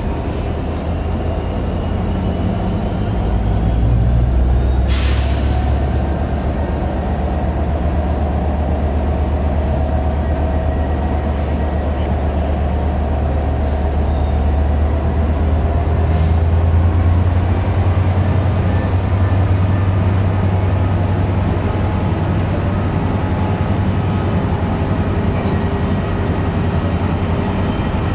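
A rake of Pullman coaches rolling slowly past behind Class 67 diesel locomotives: a steady low rumble and engine drone that grows a little louder a few seconds in. There are two brief hisses of air, one about five seconds in and one about halfway through.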